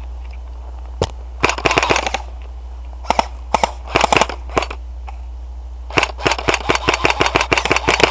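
Airsoft electric rifles firing in short bursts of sharp pops, then a fast sustained string of shots from about six seconds in, several shots a second, with a low steady hum underneath.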